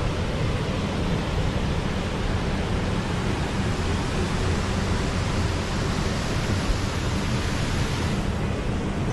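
Rushing water: a steady, unbroken rush of river water or falling water.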